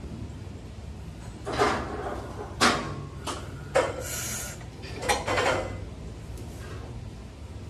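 Loaded barbell and its iron plates clanking and rattling a handful of times as a heavy deadlift is set up and broken off the floor.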